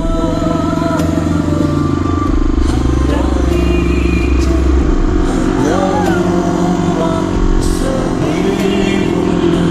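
Motorcycle engine running steadily, its pitch rising briefly near the end as it picks up revs, with a song playing over it.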